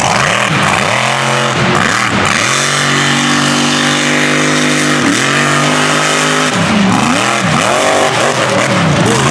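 Mega truck engine revving hard: the pitch sweeps up and down several times, holds steady for about four seconds in the middle, then rises and falls quickly again near the end.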